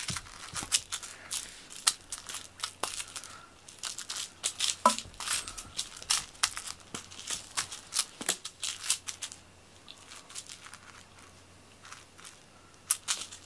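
A cat scrabbling and pouncing on a quilted fleece mat after a teaser lure dragged across it: irregular scratchy rustling and paw patter, with one louder knock about five seconds in and a quieter stretch near the end.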